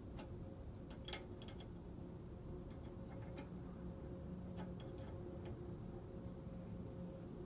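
Scattered light metallic clicks and taps from a wrench being worked on a tight brake fitting, a few coming close together, over a steady low hum.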